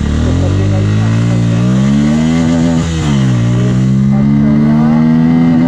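Bajaj Pulsar N160's single-cylinder engine accelerating hard from a standstill: the revs climb for nearly three seconds, drop sharply at an upshift, then climb again in the next gear.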